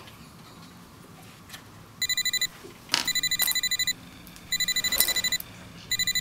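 Electronic alarm beeping in fast, high-pitched bursts of rapid beeps. The beeping starts about two seconds in, and a burst of under a second comes back four times, a little over a second apart.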